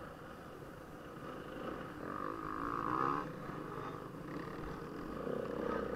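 Off-road motorcycle engine heard on board while riding, revving up hard about two seconds in, easing off a second later, then climbing again near the end.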